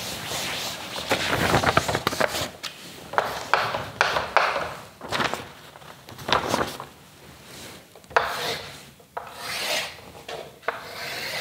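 A cloth duster rubs across a chalkboard in repeated uneven wiping strokes. Near the end a stick of chalk scrapes along the board as straight lines are drawn.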